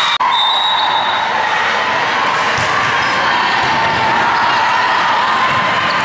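Busy din of a large volleyball gym hall: many voices and crowd noise mixed with the thuds of volleyballs bouncing on the court floor. The sound drops out for a split second just after the start.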